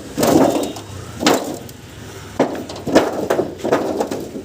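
Irregular knocks and bangs, about a dozen in four seconds, some hollow and dull, as a scrapped refrigerator's metal panels and foam insulation are broken apart by hand.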